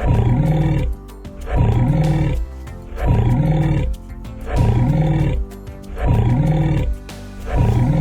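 A big-cat roar sound effect repeated in an even loop, about one every second and a half, over music.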